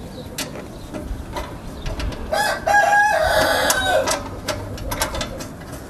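A rooster crowing once, about two seconds in, one call of about two seconds, over scattered light clicks and knocks of metal parts being handled.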